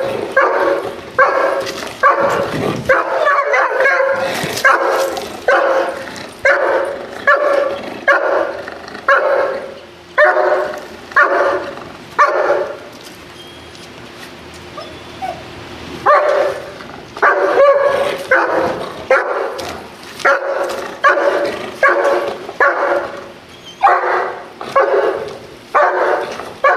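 German Shepherd protection dog barking over and over, a little more than one bark a second, the warning barks of a dog on guard over its owner. The barking stops for about three seconds near the middle, then starts again.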